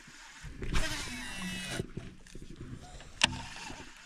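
Baitcasting reel whirring as line pays out on a cast, its whine falling in pitch as the spool slows, then a single sharp click near the end as the reel is engaged.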